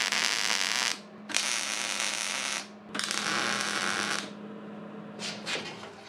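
Wire-feed (MIG) welder laying tack welds: three bursts of steady crackling hiss, each a second or so long with short gaps between, over a low steady hum. The hum stops near the end, followed by a few light knocks.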